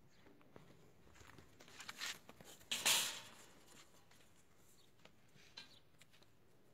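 Faint hoof steps of a Sardi ram on dry dirt, with a brief loud scraping rustle about three seconds in and a smaller one a second before it.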